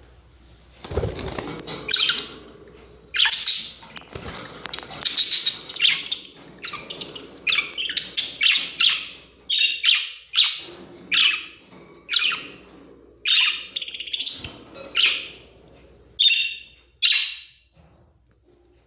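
Australian parrots chirping: a rapid run of short, sharp chirps and squawks, one after another, starting about a second in and stopping shortly before the end. A low thump sounds about a second in.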